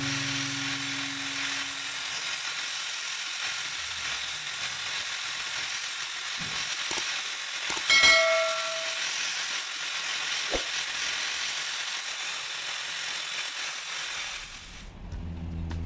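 Angle grinder with an abrasive disc grinding down a metal walking-stick tube, giving a steady hissing grind that stops near the end.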